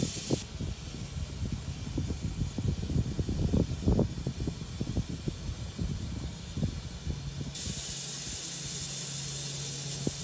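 Small live-steam locomotive hissing steam at close range. For most of the time irregular low knocks and rumbles run under it, then about three-quarters of the way in a steady, even hiss with a low hum takes over.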